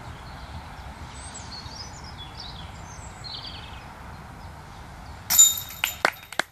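A disc golf putt striking the metal chain basket: one loud metallic clang with a short ringing tail about five seconds in, followed by several quick chain rattles.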